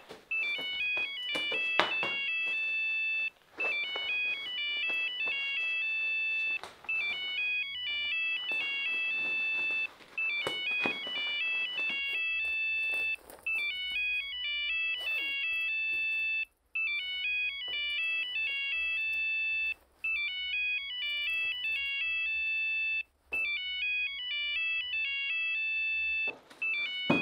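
Mobile phone ringtone: a short electronic melody that repeats about every three seconds. Rustling and clicks of a jacket's pockets being searched are heard over it, mostly in the first half.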